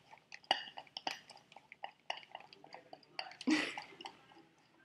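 Plastic bag of filling being handled and squeezed, giving a scatter of small crinkles and clicks, with a short rush of noise about three and a half seconds in.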